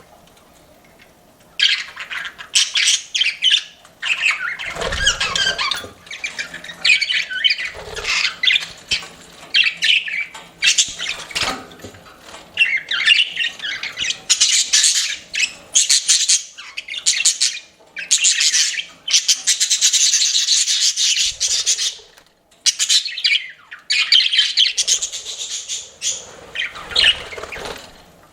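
Pet budgerigars chirping, a busy run of quick, varied high calls that starts about a second and a half in and goes on with only short pauses, with a couple of brief low thuds near the start.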